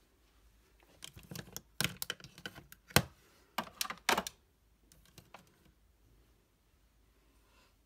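Plastic makeup compacts and organizer drawers clacking and knocking as they are handled and put away, in an irregular run of sharp clicks from about a second in until past five seconds, the loudest about three seconds in.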